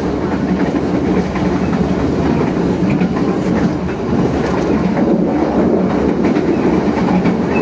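Commuterline Dhoho passenger train running along the track, heard from the rear of the last coach: a steady sound of wheels on the rails with faint irregular clicks.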